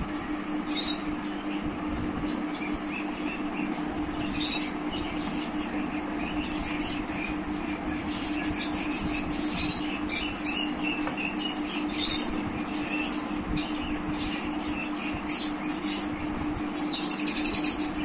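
Pencil scratching on paper in short, irregular strokes as an outline is sketched, with a denser run of strokes near the end, over a steady low hum.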